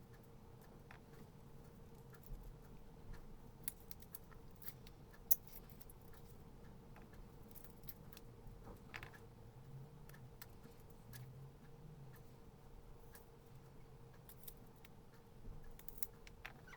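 Kitchen handling of garlic: scattered faint clicks and light taps, with one sharper click about five seconds in.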